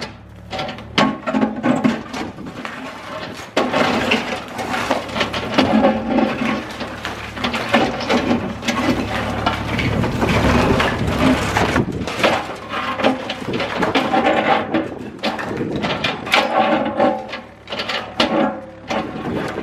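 Cat 305E2 mini excavator's diesel engine running steadily while it breaks up a concrete building, with many irregular crunches, knocks and cracks of breaking concrete.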